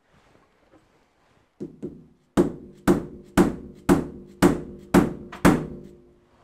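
A soft-faced mallet taps a six-jaw lathe chuck: two light taps, then seven firmer strikes about two a second, each leaving a brief metallic ring from the chuck body. The chuck is being knocked across its loosened backing plate to bring its runout back in, as read on a dial indicator.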